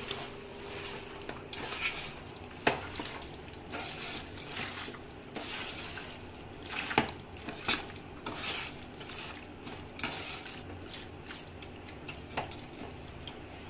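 Hand squishing and kneading chicken pieces in a thick, wet marinade in an aluminium pot, with irregular squelching and a few sharp knocks against the pot, the loudest about a third of the way in and again about halfway.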